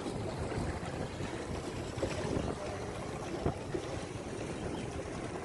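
Steady wind and sea-water noise, with a faint knock about three and a half seconds in.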